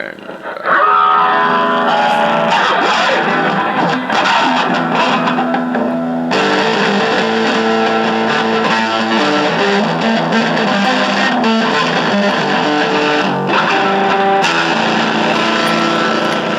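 Electric guitar played through a NUX PG-2 effects preset into the small speaker of a Honeytone mini battery amplifier: loud, sustained notes and chords with some distortion.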